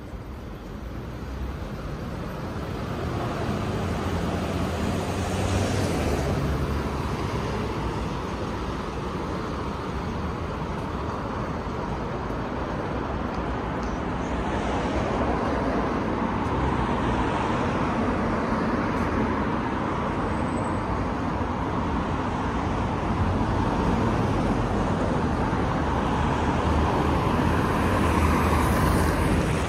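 City street traffic: a steady wash of cars driving by, swelling as vehicles pass close about six seconds in, around fifteen seconds and again near the end.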